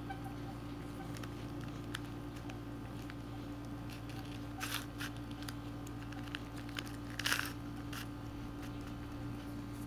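Hands fiddling with a small item: scattered light clicks and two short crinkling rustles, about four and a half and seven seconds in, over a steady electrical hum.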